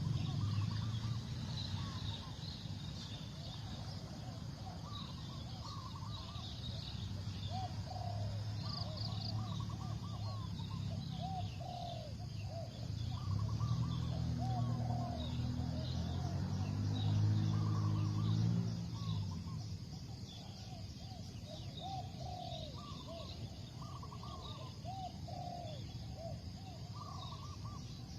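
Spotted doves cooing over and over in short, low repeated notes, with small birds chirping higher up. A low drone runs underneath, grows louder, then stops about two-thirds of the way through.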